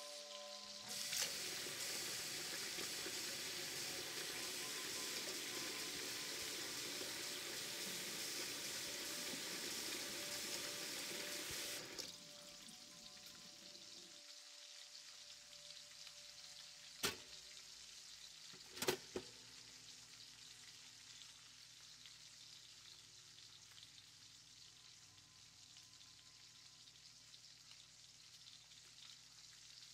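Food sizzling in a hot frying pan: a loud, even sizzle starts suddenly about a second in and drops abruptly to a quieter sizzle a little before halfway. Two sharp knocks come a couple of seconds apart just after halfway.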